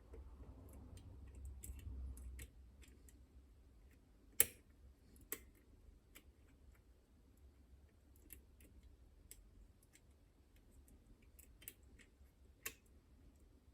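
Lock picks prodding the levers inside a Chubb Detector lever lock: faint, irregular metallic clicks and ticks, with a sharper click about four seconds in and another near the end. A low rumble runs under the first two seconds.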